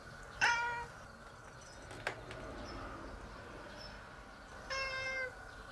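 Domestic cat meowing twice: a short, loud meow falling in pitch about half a second in, and a longer meow near the end. A sharp click about two seconds in.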